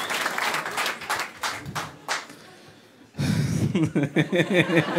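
Audience applause dying away over about two seconds. After a short lull, a man laughs in quick pulses close to a handheld microphone.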